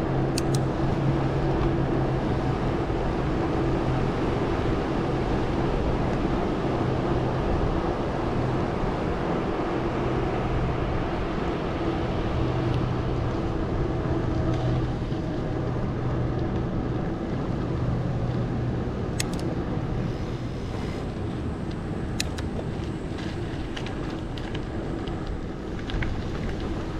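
Steady rush of air and tyre noise from a Specialized Stumpjumper mountain bike being ridden, with a low hum under it that drops away about two-thirds through. A few sharp clicks or knocks come near the start and in the last third.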